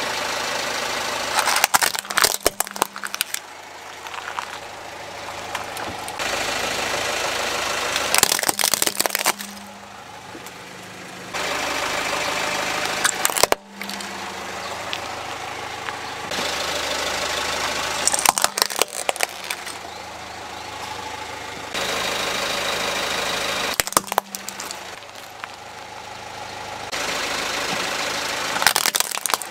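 A car tyre rolling over and crushing plastic toy vehicles one after another: about six bursts of cracking and snapping plastic, a few seconds apart, over the steady sound of the car's engine idling.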